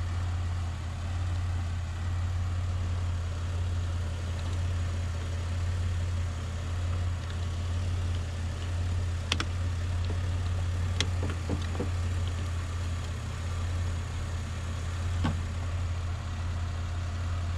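A car engine idling steadily with a low, even hum, broken by a few short sharp clicks or taps.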